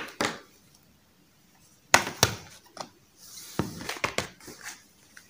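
Makeup packaging, including a plastic eyeshadow palette, being handled and set down on a tabletop. A few sharp clicks and knocks, the loudest about two seconds in, with some rustling after.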